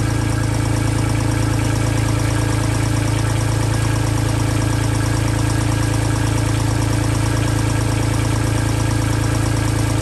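Kubota tractor's diesel engine running steadily at idle, an even, unchanging hum.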